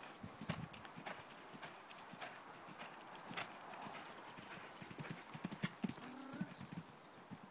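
Horse cantering on a sand arena: hoofbeats as a quick, uneven run of dull thuds, with the loudest thuds just before six seconds in, around a jump over a fence.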